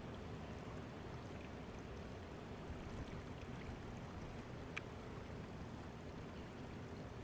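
Faint, steady rush of flowing stream water, with one small click about five seconds in.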